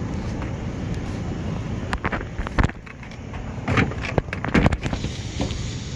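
Steady low noise of a small Mongoose kids' bike's tyres rolling on asphalt, with wind on the microphone. From about two seconds in come a string of sharp knocks and metal clanks as the bike is lifted and dropped into a pickup bed full of scrap.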